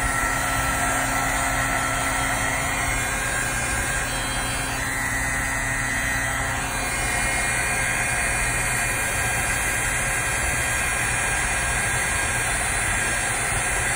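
Handheld embossing heat tool running steadily, its fan blowing hot air to melt embossing powder on cardstock.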